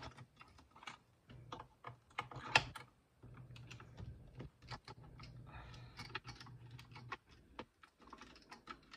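A small screwdriver turning out screws from deep holes in a projector's plastic base: irregular light clicks and scrapes of the metal tip and the handled plastic housing, with one sharper click about two and a half seconds in. A faint low hum runs underneath until about seven seconds in.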